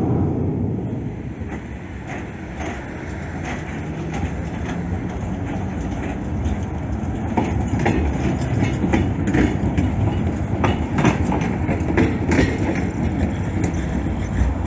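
Multi-section street tram passing close by, a steady running rumble with its wheels clicking over rail joints. The clicks come thickest over several seconds in the second half.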